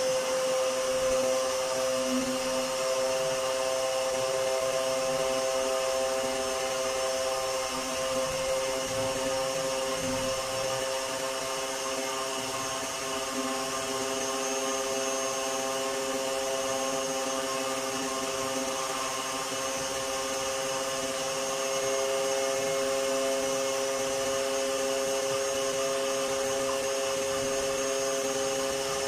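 Electric pressure washer's motor running with a steady, unchanging hum.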